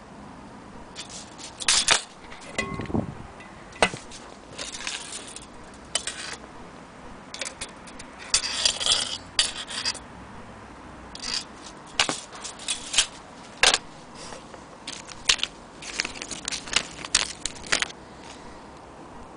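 Handling noise from a tape measure and a glass-domed anniversary clock being moved about: irregular scrapes, rubs and light clicks, with a duller knock about three seconds in.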